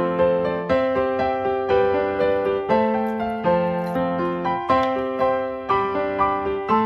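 Background music: a gentle piano melody with chords, notes struck about twice a second.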